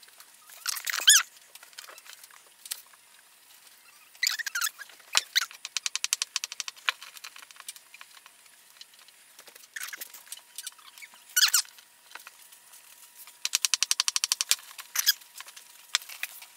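Hand-cranked pasta machine running sheets of fresh egg dough through its cutter: runs of fast, even clicking from the turning crank and rollers, a few seconds in and again near the end, with a few short squeaks.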